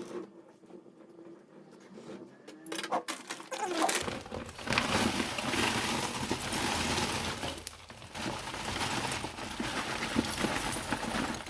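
Cheap lump charcoal, much of it dust and small pieces, poured from its bag onto the fireplace embers: a dense rattling, scraping clatter that starts about three seconds in, with a brief lull partway through.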